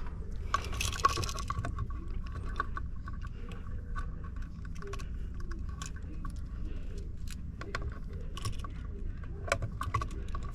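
Wire strippers taking insulation off the end of a copper house wire: scattered small metallic clicks and scrapes of the tool and wire, over a steady low background hum.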